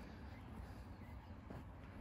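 Faint footsteps on a dirt trail, one about a second and a half in, over a steady low rumble.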